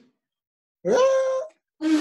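Mock elephant trumpeting blown on a party blower: short, loud, buzzy blasts. One rises in pitch about a second in and then holds, and another starts near the end.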